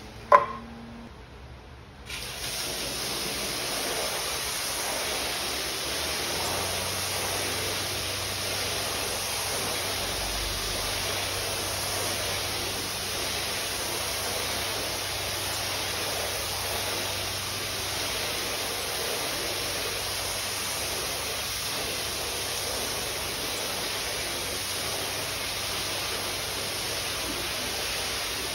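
A sharp knock, then from about two seconds in a steady hiss of water jetting from a hose spray nozzle onto an area rug, flooding it for the rinse.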